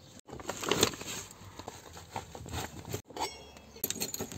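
Handling noises and scattered light clicks, then a keyring jangling as a key is pushed into a door lock near the end.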